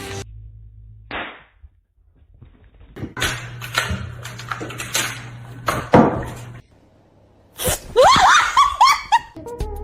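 Several sharp smacks, then a short burst of wavering, rising-and-falling cries near the end.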